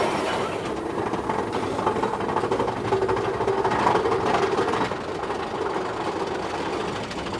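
Mine-train roller coaster cars clattering and clacking steadily along the track, easing off a little over the last couple of seconds.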